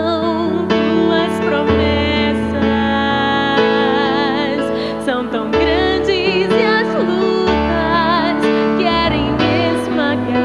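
A woman singing a slow, tender Portuguese worship ballad with vibrato, over an accompaniment of long held chords.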